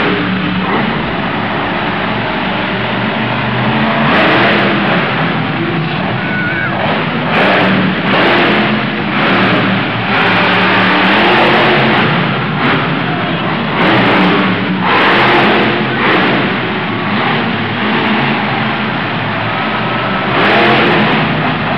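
Hurricane Force monster truck's supercharged V8 engine revving hard again and again, in loud surges every second or two over a constant rumble.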